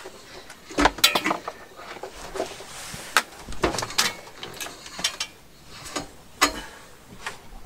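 Handling noise of a turntable and its cables being lifted and moved: irregular clicks, knocks and rustles, with a few sharper knocks spread through.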